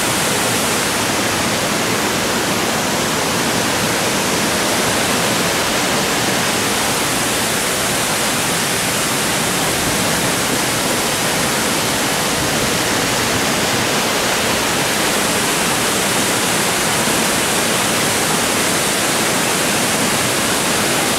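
Waterfall: the steady rush of falling water, an even, unbroken hiss.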